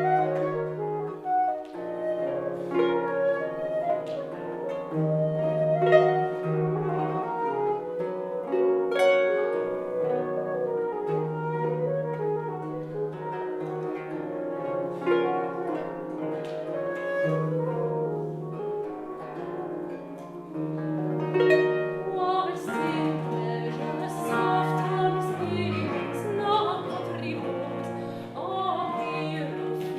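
Instrumental passage of a baroque ensemble: Celtic harp and theorbo plucking over a sustained viola da gamba bass line, with violin and baroque flute. The texture grows fuller and brighter about three-quarters of the way through.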